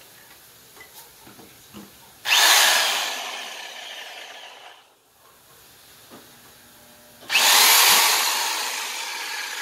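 Ryobi variable-speed jigsaw with a 4.8-amp motor running in two bursts, about two seconds in and again about seven seconds in; each starts suddenly at full loudness and then gradually dies away.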